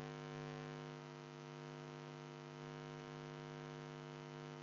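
Steady electrical hum: a constant buzzy stack of tones, strongest low down, with no other sound over it.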